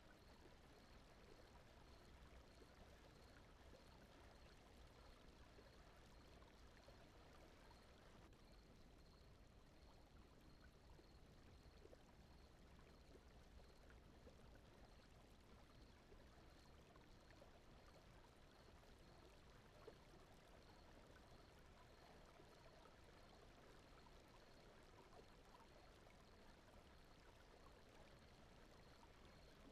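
Very faint, steady brown noise with a soft flowing-water sound like a stream, and a faint high ticking repeating at an even pace.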